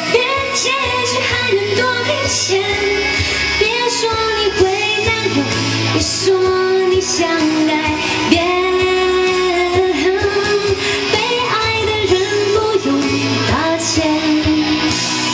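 A woman singing a Mandarin pop song live into a handheld microphone over instrumental accompaniment with a steady beat and bass.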